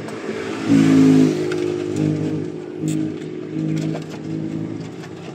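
A motor vehicle's engine running, swelling briefly about a second in, then holding at a steady run with small rises and falls.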